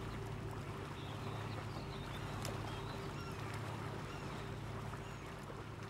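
A river cruise ship's engines and machinery humming steadily, with a wash of water noise, and a few faint bird chirps about two to five seconds in.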